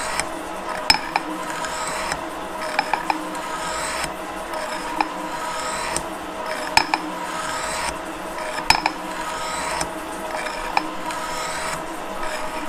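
Gould & Eberhardt metal shaper running and cutting steel, its ram going back and forth. A steady mechanical hum of several tones runs under a sharp click that comes about every two seconds.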